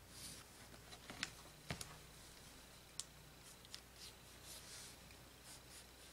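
Near silence with faint handling sounds: a few light clicks of a clear plastic ruler against the cutting table, and the soft scrape of tailor's chalk drawn along it over fabric.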